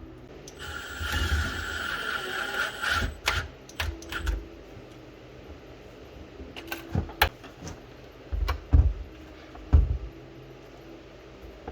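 A rough scraping or hissing noise lasting about two and a half seconds, followed by scattered knocks and clicks of objects being handled.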